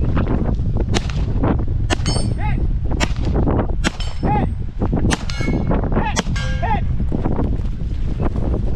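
A string of pistol shots from an STI 2011 pistol, fired in quick succession, each hit answered by the ring of a struck steel target plate. Steady wind noise on the microphone underneath.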